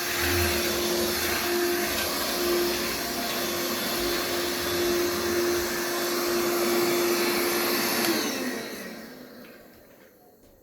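Cordless stick vacuum cleaner (VC-H71) running steadily with a constant motor whine, then switched off about 8 seconds in, its motor spinning down and fading over the last two seconds.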